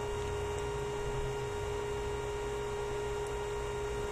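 Steady electrical hum, a constant tone over low background noise, with no distinct events.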